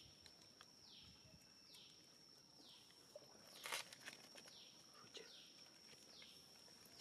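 Faint outdoor wildlife ambience: a steady high-pitched buzz, with a high call that falls in pitch repeating about once a second. One short rustle about halfway through is the loudest sound.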